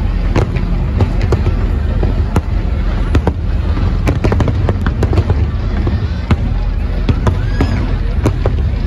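A large fireworks display, many shells bursting in quick succession: sharp bangs and crackles over a continuous low rumble.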